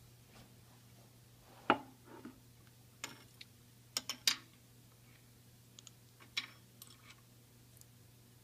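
Wooden and metal vacuum-chuck parts (a turned wooden disc, a threaded lamp rod, a bearing hub) knocking and clicking as they are handled and set down on a lathe's metal bed: a few scattered knocks, the loudest about two seconds in, over a low steady hum.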